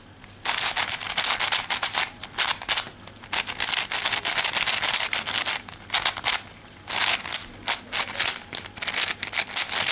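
Plastic MF5S 5x5 speed cube being turned fast by hand, its layers clicking and clattering. The clicking comes in three runs, separated by short pauses about four and six seconds in.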